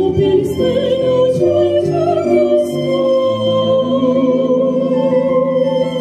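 Two sopranos singing long, held notes with vibrato, accompanied by electric piano and violin.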